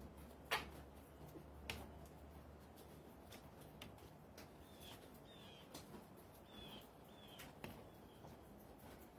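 Near silence with a couple of sharp clicks, then a few faint, short, high chirps that fall in pitch, like small-bird calls.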